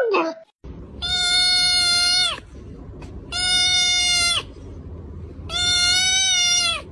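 A kitten yowling three times, each cry long, steady and high-pitched, dropping in pitch as it ends.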